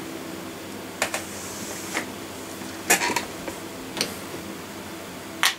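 Five or so light, sharp clicks from small objects being handled on a desk, spaced about a second apart, over a steady low hum.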